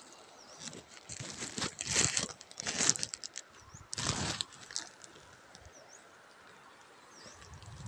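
Crinkly rustling and crunching close to the microphone, in several bursts over the first half. A bird repeats a short chirp every second or two in the background.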